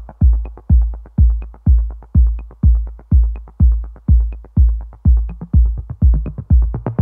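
Electronic background music: a deep kick drum beating steadily about twice a second, with a faint high tick on every other beat, and more layers coming in near the end.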